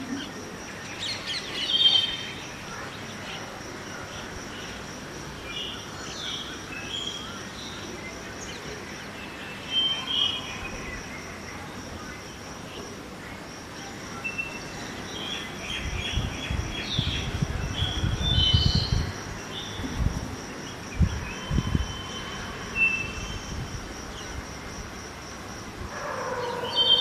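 Birds chirping and calling in scattered short phrases over a steady low city background, with a thin high steady tone throughout. About halfway through, a few seconds of low rumbling gusts of wind on the microphone.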